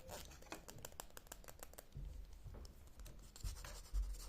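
ASMR scratching and light tapping: many small sharp clicks, with two dull low bumps near the end.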